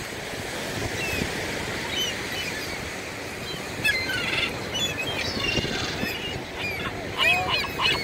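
Gulls calling as they squabble over chips: a few short, falling calls at first, then more, and a burst of loud, repeated calls near the end, over a steady background rush.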